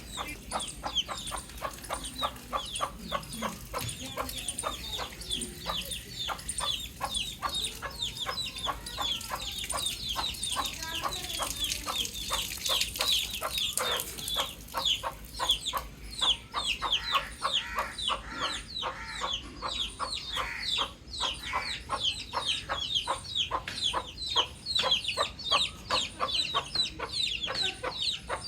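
Baby chicks peeping continuously: many short, high chirps that fall in pitch, overlapping several a second.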